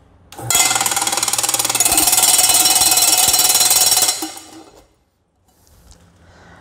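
A stone-impact tester running: a loud, rapid rattling as the test panel, covered in thick black paint-protection film, is hammered for about three and a half seconds, stopping about four seconds in.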